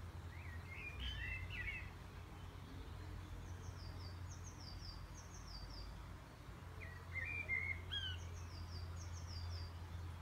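Wild birds singing: a brief warbling chirp about half a second in and again at about seven seconds, with runs of quick, high, falling notes in between and near the end. A steady low rumble of outdoor background noise runs beneath.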